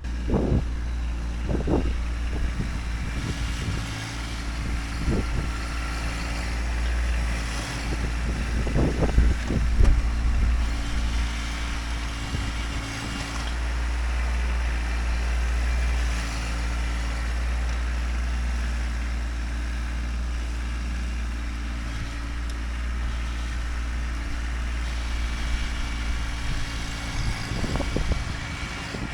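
Kubota tractor's diesel engine running steadily while it works pushing dirt, with a few short louder surges, the biggest about nine to ten seconds in.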